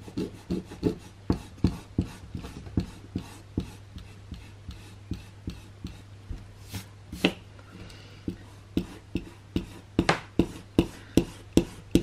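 Pencil lines being rubbed out with an eraser on paper: short scrubbing strokes, about two or three a second, louder near the end.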